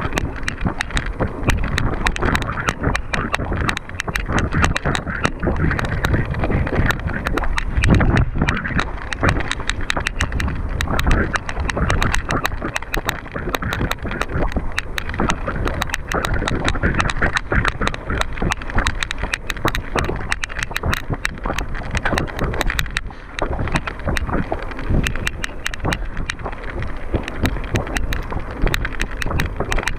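Mountain bike being ridden over rough ground, rattling and clicking continually over a constant rushing noise.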